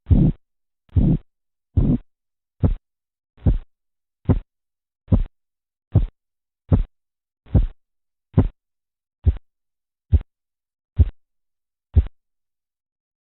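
Korotkoff sounds heard through a stethoscope over the arm's artery as a blood-pressure cuff deflates: a regular pulse of thumps a little faster than one a second. The early beats are longer and swishing, the later ones short and sharp, and the beats stop near the end.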